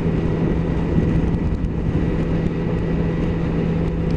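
Suzuki motorcycle's engine running at a steady cruising speed, an even hum with one constant pitch under wind and road noise on the rider's helmet microphone.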